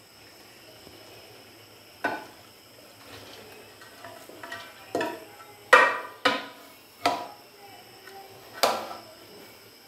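A perforated metal strainer knocking against the rim of an aluminium cooking pot as boiled rice is tipped out of it into the pot. There are about six sharp, ringing clanks, the loudest about halfway through.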